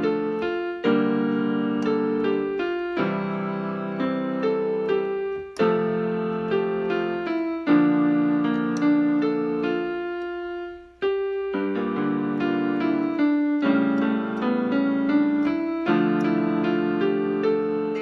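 Yamaha PSR-175 portable keyboard on its piano voice, played with both hands: a chord in the left hand about every two seconds under a stepwise right-hand melody, with a short gap about eleven seconds in.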